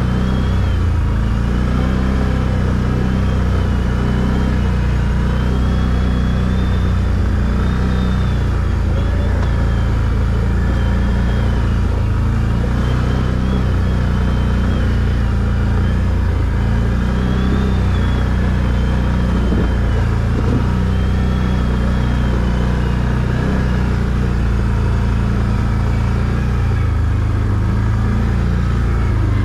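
ATV engine running steadily as it is ridden, with a faint high whine above it that wavers up and down in pitch.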